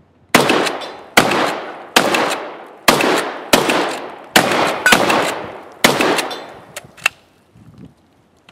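Shotgun fired eight times in quick succession, a little under a second between shots, each report ringing off and decaying. The shots are followed by two short clicks near the end.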